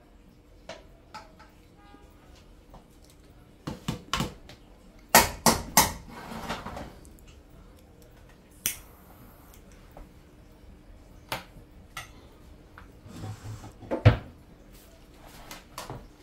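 Metal serving spoon scraping and knocking against a steel cooking pot and bowls as rice is dished out: scattered clinks and knocks, busiest about five to seven seconds in, with a ringing clink near nine seconds and a loud knock near fourteen seconds, over a faint steady hum.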